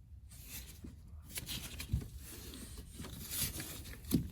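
Scraping and rustling of parts being handled, with a light knock about two seconds in and another near the end.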